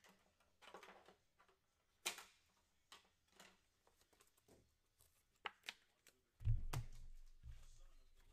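Faint, scattered sharp clicks and short rustles of trading cards and packs being handled. A few dull thumps come near the end.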